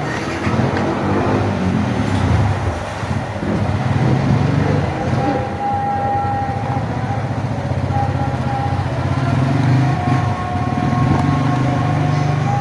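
Motorcycle engine running, a steady low drone. A thin steady tone joins it about five seconds in.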